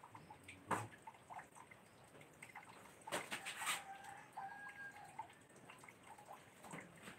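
Faint laundry-handling noises: a few light knocks and a short splash of water about three seconds in.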